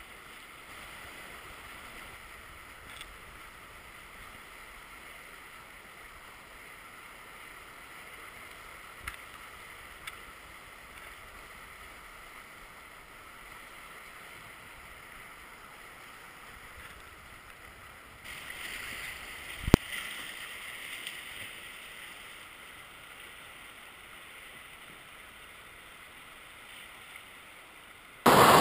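Steady rushing of river rapids, with a few light knocks and one sharp knock about two-thirds of the way through. Near the end it jumps suddenly to much louder rushing water.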